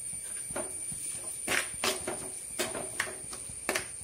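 Steel spoon scraping and knocking against a black cooking pot several times as a ground gravy paste is stirred into the fried onion and tomato masala.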